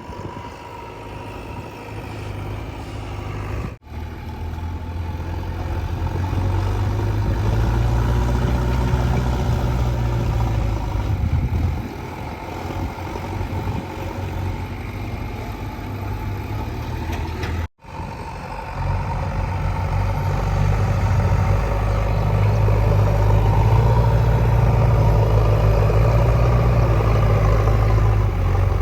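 Heavy diesel engine of earthmoving machinery running with a deep low rumble, its note swelling louder and easing off as it works. It cuts out abruptly twice, about four seconds in and again past the middle.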